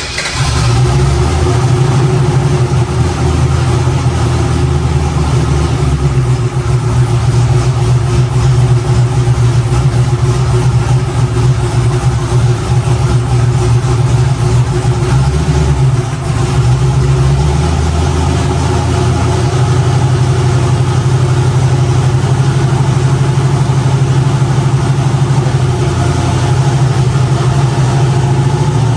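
Boosted, methanol-fuelled Chevy Nova V8 idling steadily on a chassis dyno, with a brief dip in its note about 16 seconds in.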